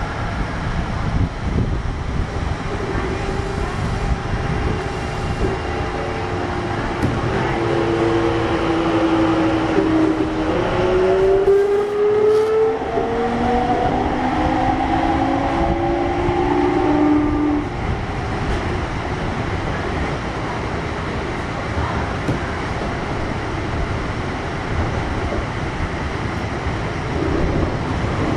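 Onboard running sound of a Kintetsu 1021 series electric train with Hitachi GTO-VVVF inverter control: a steady rumble of wheels and motors in the tunnel. From about seven seconds in, the GTO inverter's whine steps and slides in pitch for about ten seconds, then cuts off suddenly.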